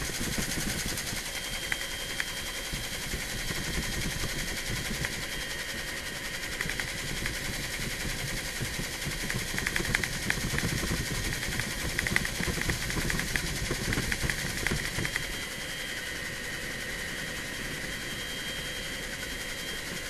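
Helicopter cabin noise in flight: the turbine and rotors running steadily with a high thin whine over a dense rush. Uneven louder crackling comes in from about ten to fifteen seconds in.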